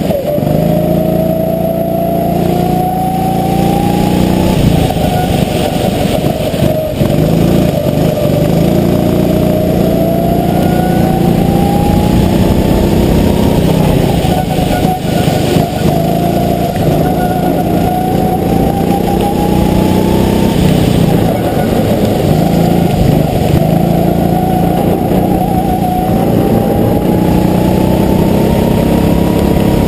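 Go-kart engine heard close up from the kart itself, revving up repeatedly as it accelerates down the straights and dropping back as the driver lifts for the corners, about five climbs in all.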